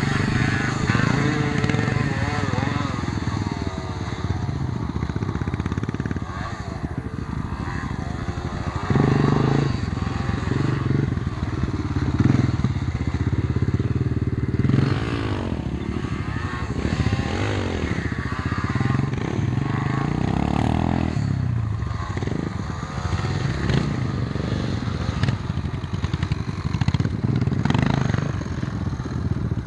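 Dirt bike engines revving, their pitch climbing and dropping again and again as the bikes accelerate and slow.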